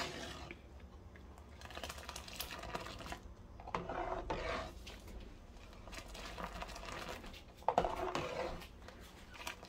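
A metal ladle beating hot, freshly boiled milk in a metal pot: a few separate swishing, splashing strokes, with a sharp tap near the end.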